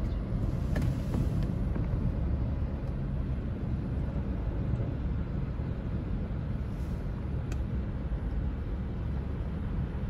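A vehicle engine running with a steady low rumble.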